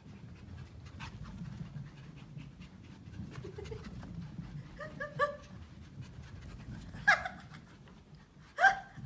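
Pomeranian puppies panting while playing, with short high barks: two quick ones about five seconds in, another about seven seconds in, and a loud one near the end.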